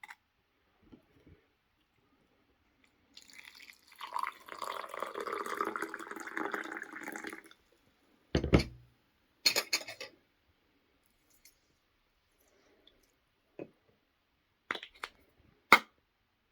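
Liquid being poured into a container for about four seconds, then a dull thump and several sharp clinks and knocks, as of glass and utensils being set down.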